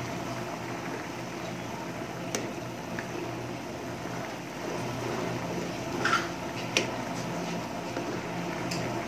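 Soup simmering and being stirred with a steel spoon in a frying pan, a thick bubbling and sloshing, with a few sharp clicks of the spoon against the pan, the loudest about six and seven seconds in. A steady low hum runs underneath.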